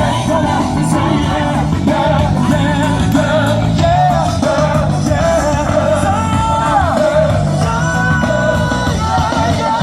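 Gospel music with singing: voices hold and bend melody lines over a band with a steady bass line.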